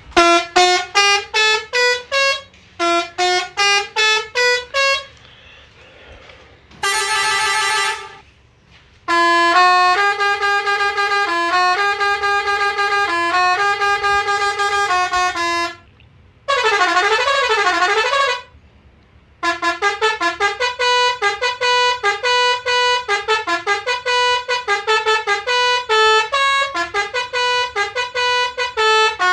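Road Master RM-615 24-volt musical horn playing a series of its melodies, with short gaps between them. First come quick rising runs of short notes, then a held chord, a note-by-note tune, a warbling up-and-down siren-like passage, and finally a fast tune of short notes.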